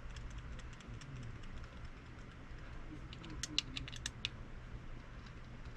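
Light clicking and tapping of small metal parts and tools as a spinning reel is taken apart and reassembled by hand, with a quick run of sharper clicks about three and a half seconds in. A low, steady hum runs underneath.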